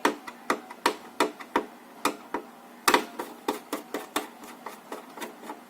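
Screwdriver clicking and tapping against the screws of an all-in-one PC's back housing as they are undone. It makes a string of sharp, irregular clicks, about two to three a second.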